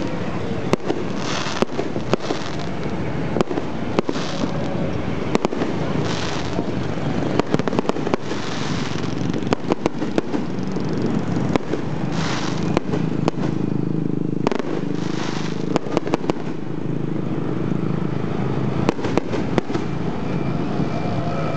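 Fireworks display: many bangs and pops of shells bursting, with short hissing bursts every few seconds, over a steady low background rumble.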